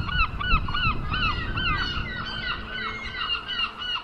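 A flock of birds calling: many short, rising-and-falling calls repeated several times a second and overlapping one another, fading near the end.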